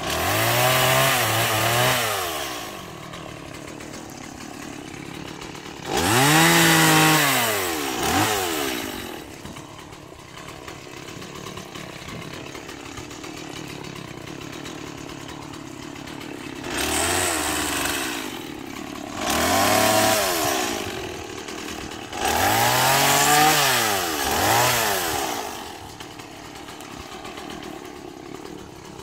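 Gas chainsaw cutting brush and vines, revving up in five bursts of a few seconds each, its pitch rising then falling with each burst, and idling in between.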